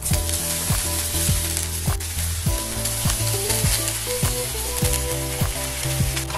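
Cubes of starch-coated tofu frying in hot oil in a frying pan over medium heat, with a steady sizzle.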